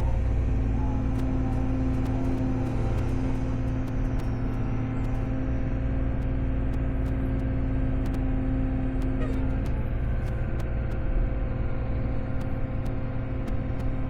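Excavator's diesel engine running steadily under work. A steady hum within it drops out about nine and a half seconds in.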